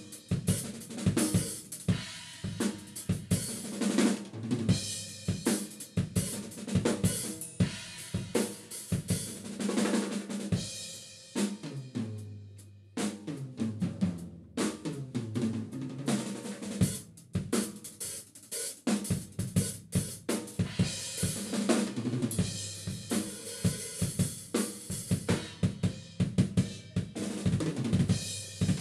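Acoustic drum kit played solo: fast, dense strokes on snare, bass drum, toms, hi-hat and cymbals. About halfway the playing briefly thins, then a run of drum strokes falls in pitch.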